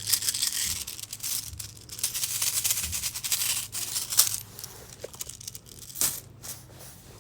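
Textured metal beads on a duo beaded fidget loop clicking and rattling against each other as they are worked through the fingers, dense for the first few seconds, then thinning to scattered clicks.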